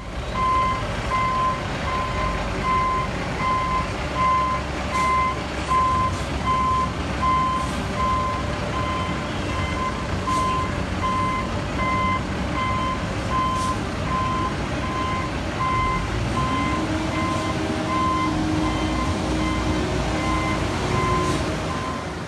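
Back-up alarm on heavy road-paving equipment beeping steadily, about three beeps every two seconds, over diesel engines running; about sixteen seconds in, an engine note rises and holds.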